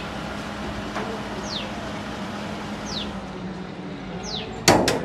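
A bird repeats a short falling whistle about every second and a half over a steady low hum. Near the end comes a sharp double knock from the car's body, the loudest sound.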